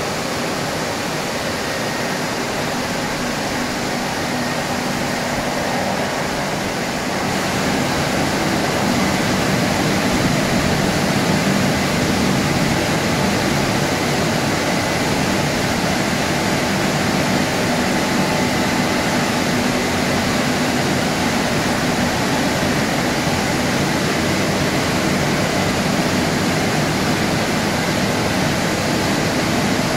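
Automatic gantry car wash running over a car: a steady rush of water spray and machine noise with a low hum, growing louder about seven seconds in.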